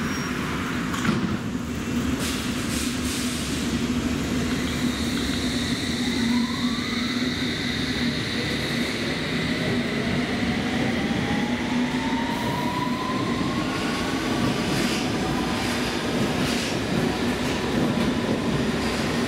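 London Underground S7 Stock train accelerating away from the platform. Its motor whine rises steadily in pitch over a constant low hum, and intermittent clacks come from the wheels on the track.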